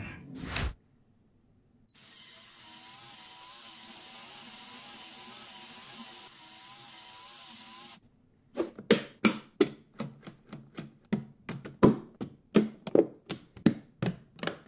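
Lego Technic walker's electric motor and leg mechanism running steadily with a faint wavering whine as it tries to climb the slippery glass slope. It stops suddenly, and about two seconds later comes a quick, uneven series of sharp plastic clicks and knocks as a Lego car chassis is handled.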